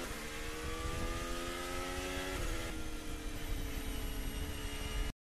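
A Ferrari F1-75 Formula 1 car's turbocharged V6 running, heard through the onboard team-radio audio. Its pitch climbs slowly, drops once about two and a half seconds in at an upshift, then climbs again, before the sound cuts off suddenly near the end.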